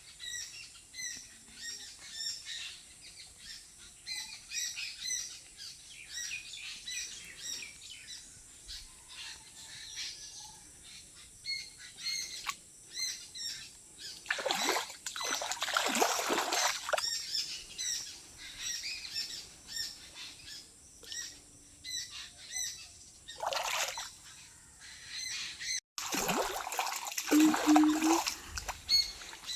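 Many small birds chirping and calling, a steady scatter of short high chirps. There are a few louder noisy bursts about halfway through and again near the end.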